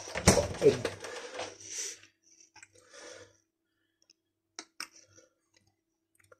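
A few faint, light clicks and taps from things being handled on a kitchen counter, coming after low voice sounds in the first two seconds.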